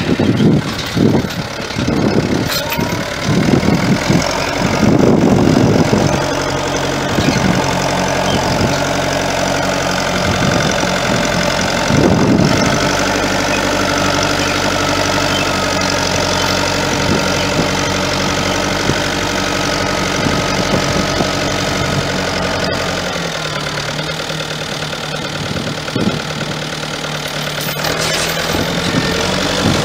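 Fiat tractor's diesel engine running steadily while pulling a tined seeding implement through the soil, its note stepping down lower about three quarters of the way through. Heavy low thumps come and go in the first few seconds.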